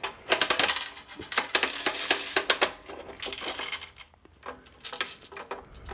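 Quarters and M&Ms clattering through a candy vending machine: coins jingling and dropping in, candy rattling out. Three spells of rattling, the first and longest about two and a half seconds.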